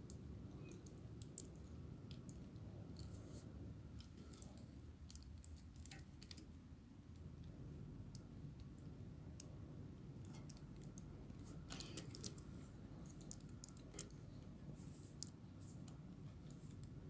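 Faint, scattered clicks and snaps of hard plastic parts as the Transformers MP-39 Sunstreaker toy figure is handled and its limbs and panels are moved into place, over a low steady background hum.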